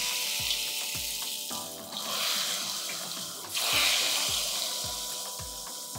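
Batter-coated seaweed sheets deep-frying in hot palm oil: a loud, steady sizzling hiss that surges again about two seconds in and most strongly at about three and a half seconds, as more pieces go into the oil.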